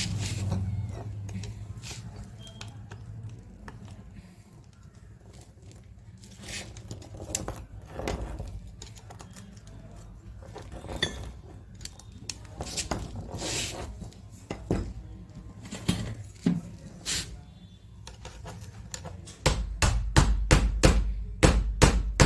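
Metal clicks and knocks from the chuck parts of a rotary hammer drill being taken apart by hand, then near the end a quick run of sharp metal taps, about five a second.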